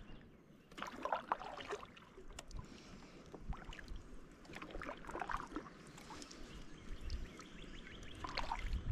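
Kayak paddle stroking through the water: a few quiet strokes, each with a soft splash and water dripping off the blades.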